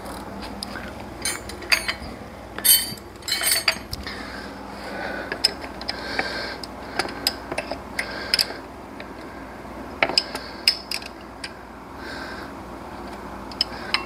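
Metal hand tools clinking and knocking against each other and against engine parts while work goes on at the belt and alternator. The clinks and taps come at irregular intervals, and a few ring briefly, most clearly around three seconds in.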